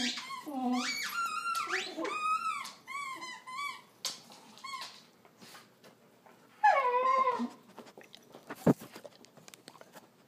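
A dog whining in high squeals while it plays with a fleece rope toy: a quick string of short rising-and-falling squeals over the first few seconds, then one longer falling whine about seven seconds in. A single sharp knock follows shortly after.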